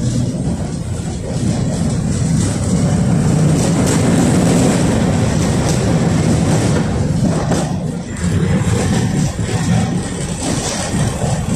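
Running noise of a KTM-5M3 tram heard from inside the car as it travels: wheels on the rails and the traction motors. It grows louder over the first few seconds and dips briefly about eight seconds in.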